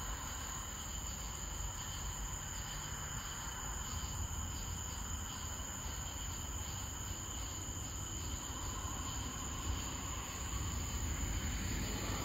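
Night chorus of crickets and other insects trilling steadily, with a low steady rumble underneath.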